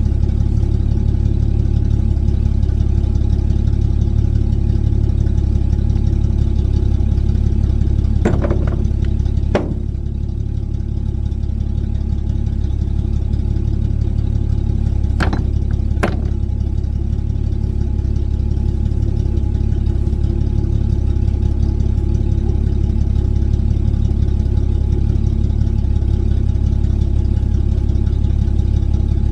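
Old Chevy pickup truck's engine idling steadily. Two pairs of sharp knocks, one about a third of the way in and one about halfway, as rocks are handled.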